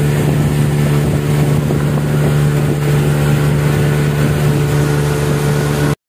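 A motorboat's engine running at a steady cruising drone, with wind and water noise as the boat moves across the lake. The sound cuts off abruptly at the very end.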